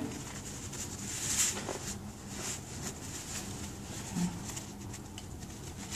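Faint rustling and swishing of a body-weight-support harness's nylon straps being pulled tight through their buckles, with a few soft scrapes.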